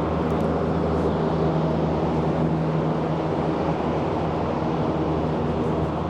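Steady city traffic rumble, with the low hum of a nearby engine underneath.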